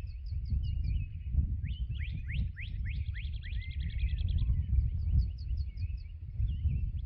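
Dawn chorus of several birds singing at once. A run of short, high, down-slurred notes sounds twice, near the start and again about five seconds in; between them come a series of quick rising whistles and a fast trill. A steady low rumble runs underneath.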